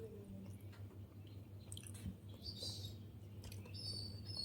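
Mouth sounds of someone eating rice and fish: soft chewing with scattered small wet clicks. Birds chirp faintly in the background, more so in the second half, over a steady low hum.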